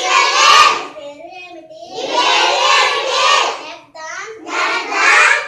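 A group of young schoolchildren reciting phrases aloud in chorus, three phrases with short pauses between, in the Bodo language.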